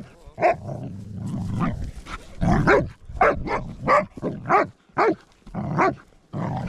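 A German Wachtelhund growling, then giving a quick run of short, sharp barks about twice a second as it worries a shot deer's carcass with its teeth.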